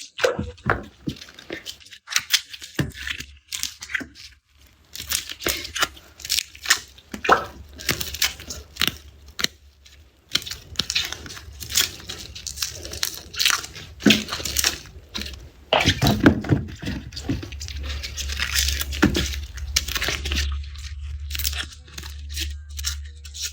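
Garlic being peeled by hand: the dry papery skins crackle, tear and snap in an irregular run of crisp crunches, with a few short pauses.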